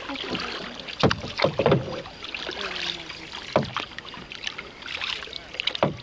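A rowboat being rowed on calm water: irregular oar strokes splashing and knocking against the boat, with a cluster of strokes about a second in.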